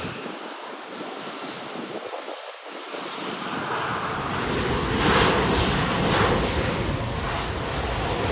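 Jet airliner engines heard from the ground, a steady roar that grows louder as a low rumble builds from about three seconds in. In the second half, wind gusts buffet the microphone over the jet noise.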